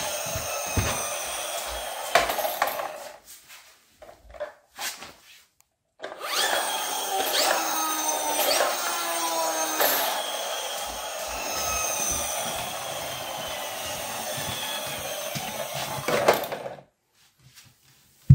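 Friction-flywheel motor of a toy car whirring as the car is pushed along, with a small plastic noisemaker on the flywheel rattling against it to give a buzzing, engine-like noise, made louder by the plastic body shell. Two runs, the second much longer, its pitch falling as the flywheel slows.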